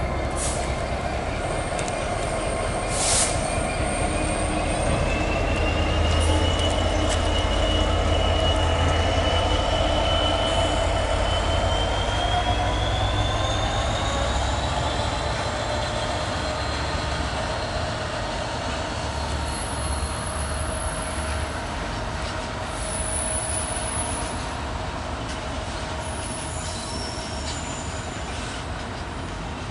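Freightliner Class 66 diesel-electric locomotive passing slowly, its two-stroke diesel engine giving a low rumble under a high whistling tone that slowly rises. A train of box wagons follows it, with short high wheel squeals in the second half.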